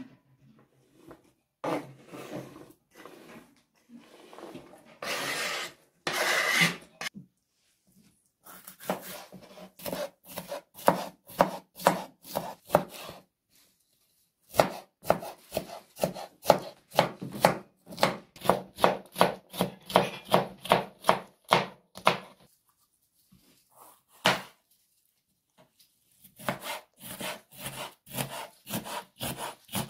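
Kitchen knife slicing green bell peppers on a wooden cutting board, in runs of quick, even cuts at about three a second with short pauses. Near the start, grated carrot is scraped off the board into a metal bowl, a longer scraping sound.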